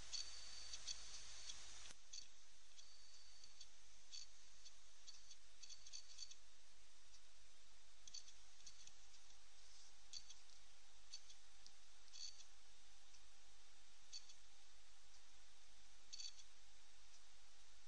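Faint, irregular clicking over a steady hiss and a faint hum.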